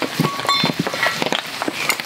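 A small metal camp pan being set down on split logs laid as a trivet over a wood fire: a short metallic ring about half a second in, amid many irregular ticks, pops and small knocks.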